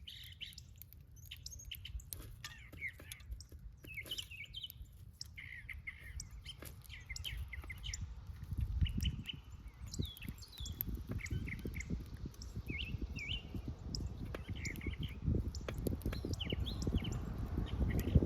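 Small garden birds chirping in quick, repeated short notes. A low rumble with small knocks builds up through the second half.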